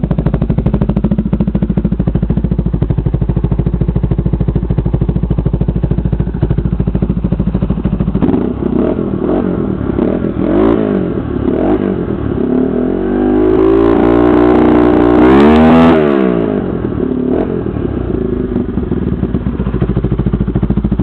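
1991 Yamaha YFM350 Warrior's single-cylinder four-stroke engine, fitted with a 450 cam, idling steadily. About eight seconds in it is revved with several throttle blips, then a longer rise held high for a few seconds before it drops back to idle.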